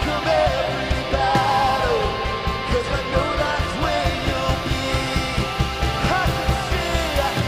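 Live worship band playing a song with a steady drum beat, with a singer's voice carrying the melody over it.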